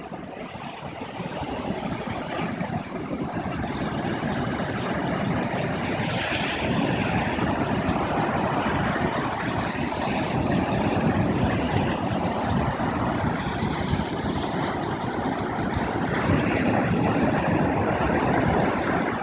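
Rough surf breaking and washing up a sand beach: a steady, loud roar of waves, with hissing surges several times as crests break and wash in.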